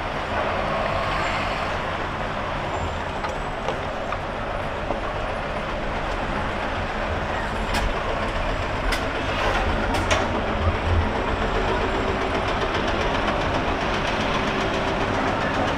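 Steady rumble of passing vehicles with street noise, with a few sharp clicks about halfway through.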